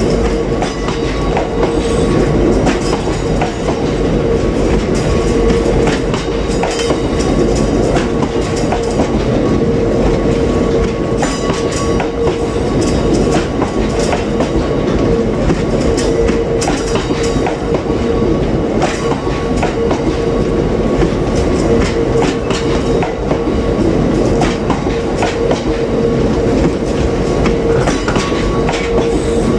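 Freight train of open box wagons rolling past close by: a steady rumble of wheels on rail with irregular clicks as the wheels cross rail joints, and a steady tone running through it.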